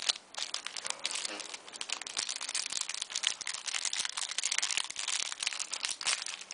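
Clear plastic wrapping and sleeved trading cards crinkling and crackling as they are handled and unwrapped, an irregular run of small crackles.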